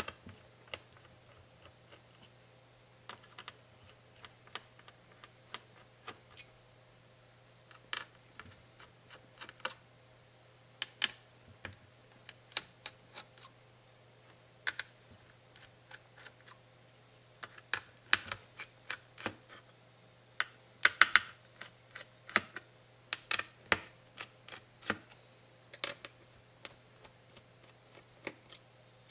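Irregular small clicks and taps of plastic and metal laptop parts being handled and lifted out during disassembly, busiest and loudest about two-thirds of the way through.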